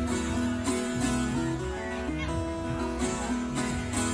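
Background music: a guitar tune with notes that change every half second or so.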